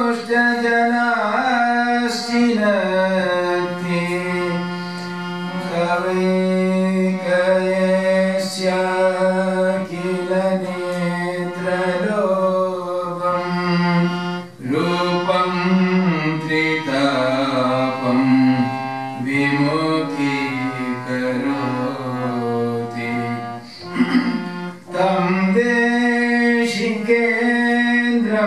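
A man singing an Indian devotional song (bhajan) into a microphone, accompanying himself on a harmonium with long held reed chords under a gliding, ornamented vocal line.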